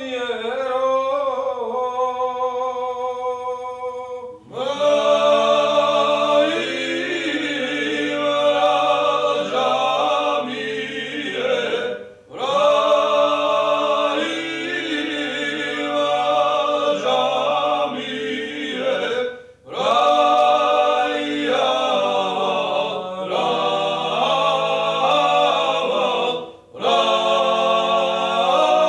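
Male trio singing a Georgian polyphonic folk song without accompaniment, in close harmony over a low held drone. A single voice leads at first and the others join about four seconds in; the song moves in long phrases with brief breaths between them.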